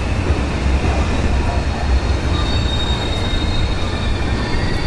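A train passing close by on the rails, with a steady heavy rumble and a thin high-pitched wheel squeal that grows stronger near the end.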